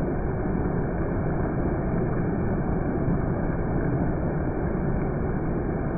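Heavy monsoon rain pouring steadily, a dense even rushing noise.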